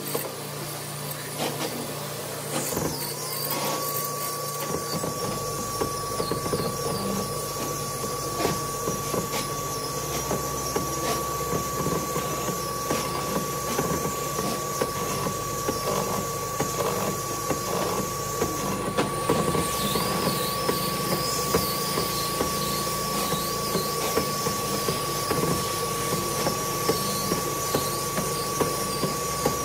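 An old woodworking boring/mortising machine. Its motor winds up about three seconds in to a steady whine, then its bit cuts into a solid wood beam with a constant crackle and knocking of chips being torn out.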